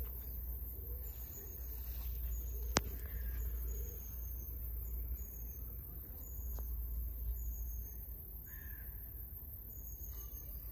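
Birds calling: a small bird repeats a short, high, falling chirp about once a second, with two harsher, lower calls, over a steady low rumble. A single sharp click about three seconds in.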